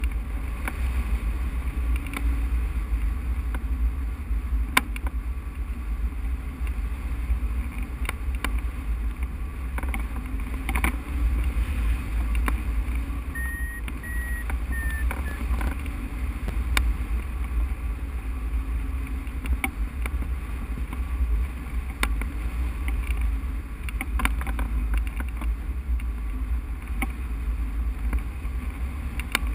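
Airflow buffeting the microphone of a hang glider in flight, a steady low rumble with scattered light clicks. A brief high tone sounds about halfway through.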